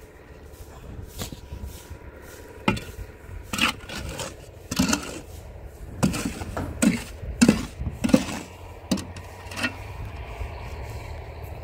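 Repeated scraping strokes of a hand tool worked against a rough surface, about nine strokes roughly a second apart, starting about two and a half seconds in. A low steady hum runs underneath.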